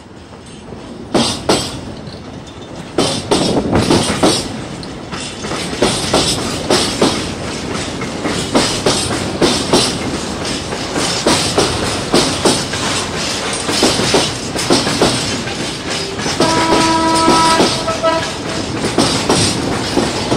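A freight train of grain hopper wagons passing close by, loud rolling noise building up about a second in, with the wheels clicking over rail joints in a steady clickety-clack. A short horn tone sounds for about a second and a half near the end.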